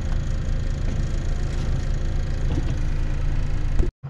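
Truck diesel engine running steadily with a low rumble, heard from inside the cab while it warms up; the sound cuts off abruptly near the end.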